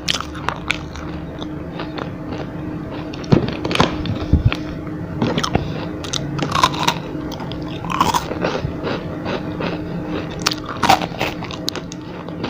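Close-up biting and chewing of crispy chocolate rolls: irregular crunches with a few louder bites spread through.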